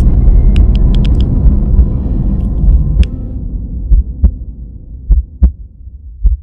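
Glitchy outro sound effect: a deep rumbling bass hit that slowly fades away, overlaid with scattered sharp digital clicks and crackles, and a few isolated low thumps in the second half.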